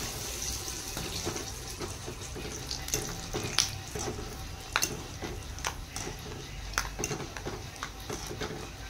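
Peanuts deep-frying in hot oil in a steel kadai: a steady sizzle, with several sharp metallic clinks as a wire spider strainer stirs them and knocks against the pan.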